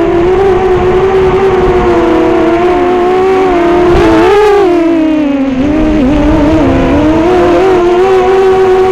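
FPV racing quadcopter's four Racerstar BR2205 brushless motors and 5-inch props whining, the pitch wavering with throttle: it swells about four seconds in, drops lower around six seconds, then climbs back. Wind rumbles on the onboard camera's microphone underneath.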